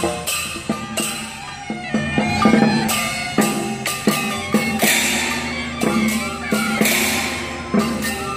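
Chinese street procession band playing: bamboo flutes and other wind instruments carry a reedy melody over repeated clashing cymbal crashes and drum beats.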